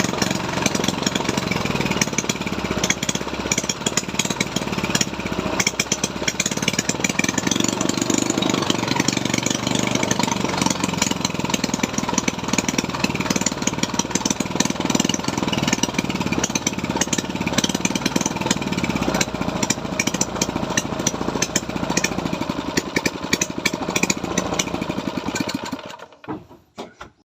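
Engine running steadily with a rapid, even firing clatter. It stops about 26 seconds in, leaving silence.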